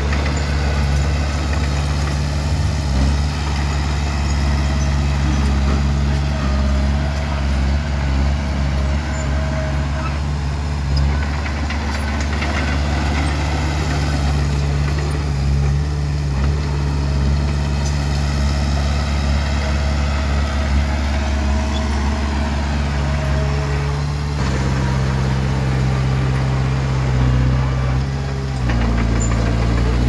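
Komatsu D20P bulldozer's diesel engine running steadily. Its note changes about three-quarters of the way through and again near the end.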